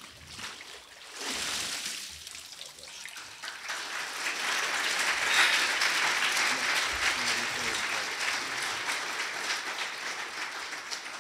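Congregation applauding. It swells about a second in and dies away near the end.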